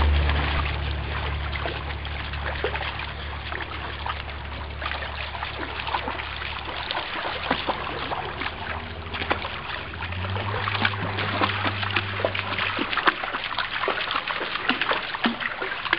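Shallow river water rippling over stones, with the splashing of a Samoyed's legs as it wades through it. A low rumble sits under the water at the start and again about ten seconds in.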